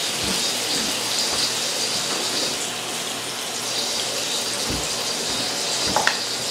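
Water running steadily from a kitchen tap, with a few soft knocks.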